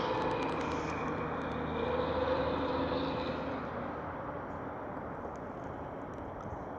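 A motor vehicle passing on the street, its engine and tyre noise loudest in the first few seconds and then fading away as it recedes.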